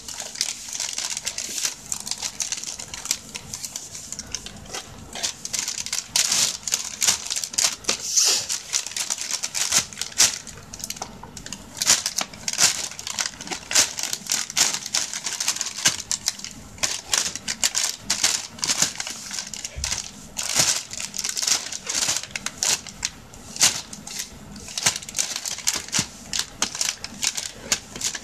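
Thin plastic shopping bag crinkling and crackling in quick, irregular rustles as a cat paws and wriggles about inside it.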